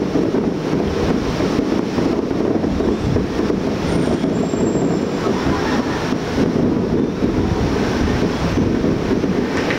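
Fireworks finale barrage: shells bursting so closely together that the bangs merge into a continuous heavy rumble, with no let-up.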